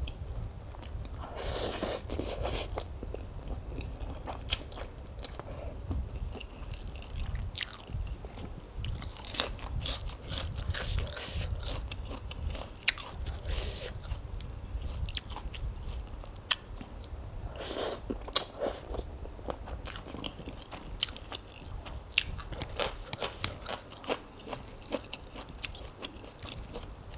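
Close-miked eating of a spicy rice-noodle salad: chewing with wet mouth sounds and frequent sharp crunchy bites all through.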